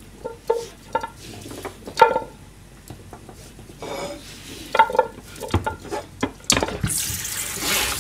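Hard chunks of cut carrot and other vegetables dropping and scraped into a black frying pan, a string of sharp clatters with a short ringing note from the pan. About seven seconds in, water from a pull-out kitchen tap starts running steadily into the pan.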